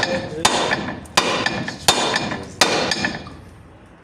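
Hammer blows on steel suspension parts: four evenly spaced strikes about 0.7 s apart, each with a short metallic ring, stopping about three seconds in. This is the knocking used to free the lower ball joint of a Hyundai Porter 2 during its removal.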